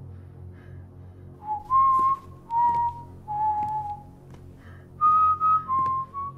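A person whistling a slow tune in two short phrases with a pause between them, the second phrase pitched higher, over a low steady hum.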